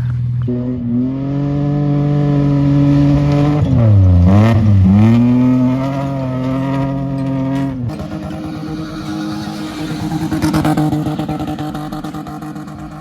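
Car engine running under load, its pitch dropping and climbing twice about four seconds in, then holding steady before the sound changes to a lower, steadier running tone near eight seconds.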